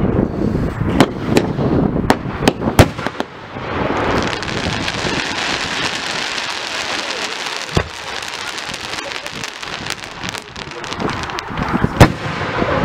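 Aerial fireworks display: several sharp bangs of shells bursting in the first three seconds, then a dense crackle like heavy rain from a glittering burst lasting several seconds, and one loud bang near the end.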